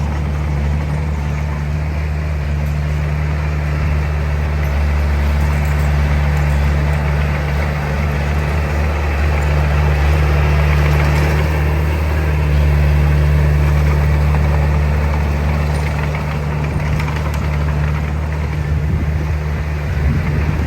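Heavy diesel earthmoving machinery running steadily with a low, deep engine note, growing somewhat louder for a few seconds midway.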